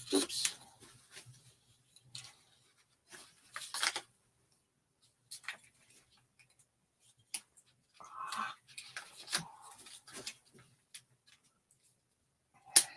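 Plastic clamps and metal tube fittings of a studio easel being handled and fitted together by hand: scattered clicks, knocks and scrapes with short pauses between them, busiest about eight to ten seconds in.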